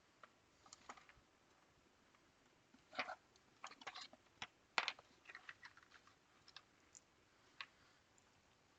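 Scattered faint clicks and taps of small tools and parts being handled at a workbench, bunched in the middle with the sharpest tap about five seconds in.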